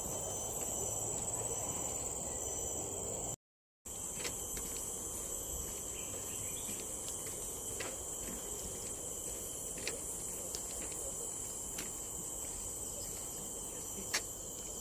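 Steady high-pitched insect chorus with a fainter second tone underneath, and scattered light ticks every couple of seconds. The sound cuts out completely for about half a second a few seconds in.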